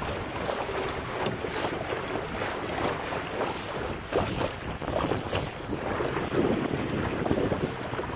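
Wind buffeting the microphone over water rushing and slapping against the hull of a Laser sailing dinghy under way, with uneven splashes.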